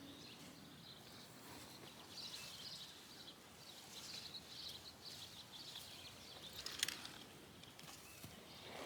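Faint outdoor ambience with small birds chirping in the distance, and a single soft click about seven seconds in.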